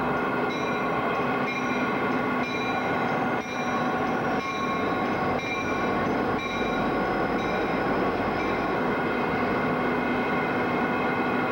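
MBTA commuter diesel locomotive running with a steady, many-toned engine drone as the train pulls out. There are faint regular knocks about once a second during the first half.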